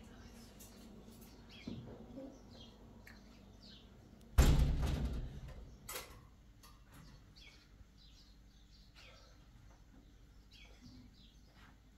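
Faint small-bird chirps repeating. About four seconds in comes one loud thud that fades over about a second, followed shortly by a sharp knock.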